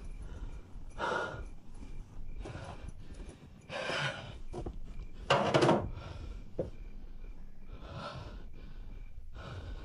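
A young man sobbing in ragged, gasping breaths, one every second or two, the strongest gasp about five and a half seconds in.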